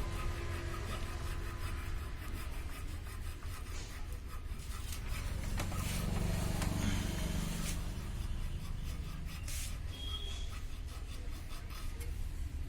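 Old tape being cut and scraped off a motorcycle's main stand, with irregular rubbing, scraping and small clicks, over a steady low hum of traffic.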